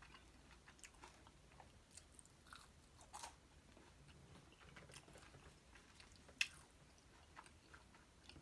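Faint close-up chewing of food, with soft crackles and mouth clicks and one sharper click about six and a half seconds in.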